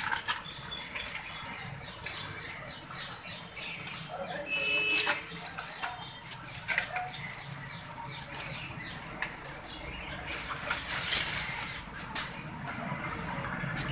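Aluminium foil crinkling and rustling as it is unwrapped by hand, in irregular crackles, with a louder burst about eleven seconds in.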